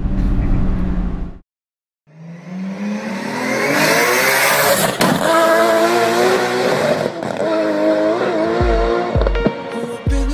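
Car cabin noise cuts off after about a second and a half. After a short silence, an intro sound effect of a car engine revving up rises with a whoosh and holds at high revs. Music with deep bass thumps begins near the end.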